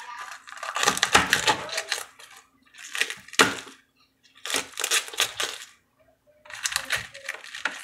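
Kitchen knife chopping through crisp cabbage leaves onto a cutting board, in four bursts of quick crunching strokes with short pauses between.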